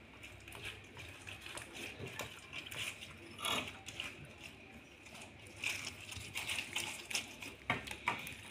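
Glitter slime being pressed, poked and pulled apart by hand, with an air bubble trapped in it: faint, irregular sticky clicks and squelches, a few louder ones scattered through.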